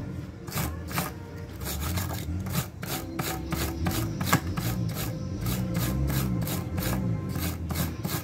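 Repeated scraping strokes, about three a second, of a hacksaw blade used as a scraper to clean the metal parts of a starter motor.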